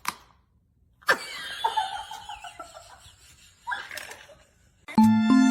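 A person laughing: a long laugh, then a shorter one. Near the end, music with plucked string notes starts.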